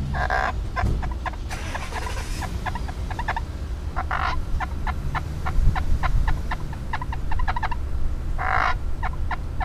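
Homemade friction call, a small plastic cup with a wet rubber strip rubbed by a finger, squeaking out chicken-like clucks: a run of short clucks, about two or three a second, broken by three longer squawks. Wind rumbles on the microphone underneath.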